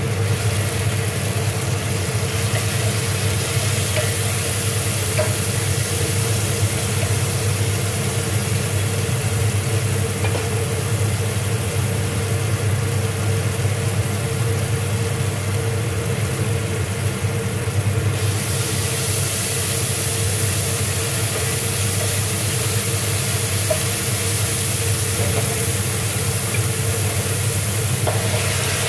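Food sizzling in oil in a stainless steel sauté pan, with a few light spoon ticks, over a steady low mechanical hum. The high hiss of the sizzle gets louder about eighteen seconds in.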